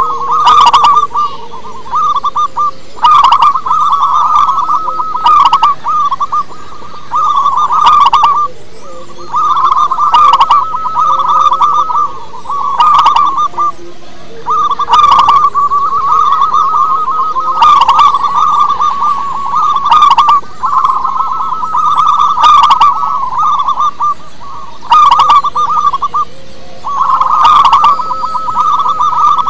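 Zebra dove (perkutut) cooing: repeated bouts of rapid, trilled coo notes, each a second or two long with short pauses between. Brief sharp clicks come roughly every two and a half seconds.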